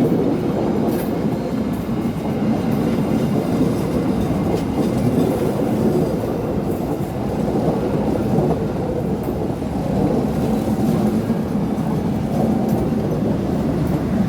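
A train running past, a steady loud rumble of wheels on the rails with faint clacks.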